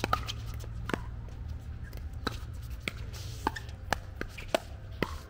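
A pickleball rally: the hard plastic ball is struck back and forth with paddles and bounces on the court, giving a string of about eight sharp pops at uneven intervals of half a second to a second.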